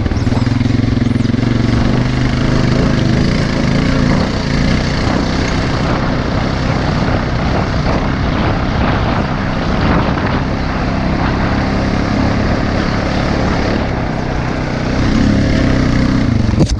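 Honda Rancher 420 ATV's single-cylinder four-stroke engine running under throttle, with heavy wind noise on the microphone. The engine note is strongest at the start and swells again near the end.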